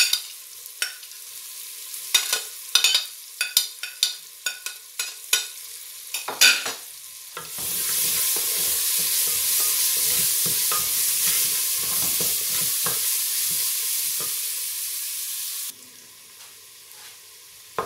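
Chopped onion scraped off a plate into hot oil in an aluminium pressure-cooker pan, with many sharp clicks of the spoon and a wooden spatula against the metal. Then the onions sizzle loudly in the oil for about eight seconds, stopping abruptly.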